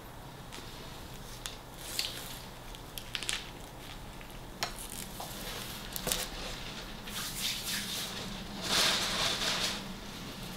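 Close-miked eating sounds: chewing a sub with wet mouth clicks and finger licking, with rustles of the paper wrapper as the sandwich is put down.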